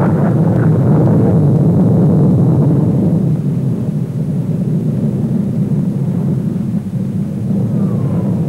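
Avro Vulcan delta-wing bomber's four Bristol Olympus jet engines: a low, steady jet roar as it passes overhead, easing a little after about three seconds as it draws away.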